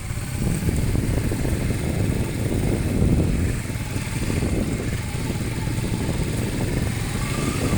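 A motorcycle engine running, a steady low mechanical noise with a fast flutter.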